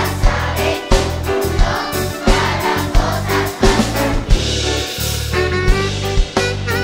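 Children's choir singing a Catalan children's song to band accompaniment with a steady beat and bass line.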